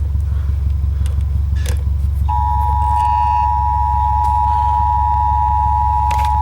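A steady low hum under the broadcast. About two seconds in, the two-tone Emergency Alert System attention signal starts and holds steady, marking the start of an emergency alert, here a severe thunderstorm warning.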